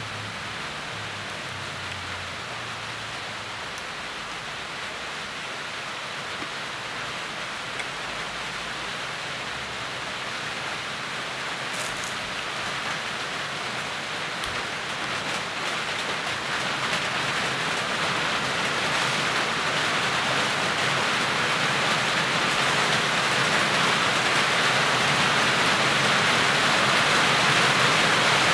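Rain falling as a steady hiss, growing gradually louder as the downpour gets heavier.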